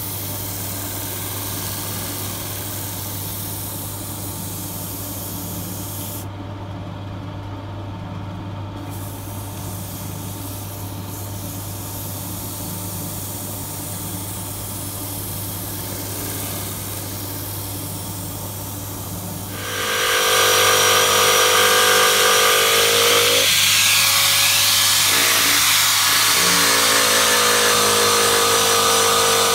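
Wood lathe running with a steady hum while sandpaper is held against the spinning bowl. About two-thirds of the way in, a corded electric drill fitted with a polishing pad starts up much louder with a whine, its pitch sagging twice and recovering as the pad is pressed into the bowl.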